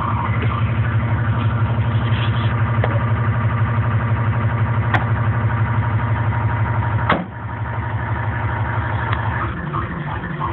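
Turbocharged 1.6-litre DOHC four-cylinder engine of a modified Hyundai Lantra idling steadily with the bonnet open. About seven seconds in, a single thump as the bonnet is shut, after which the engine is quieter.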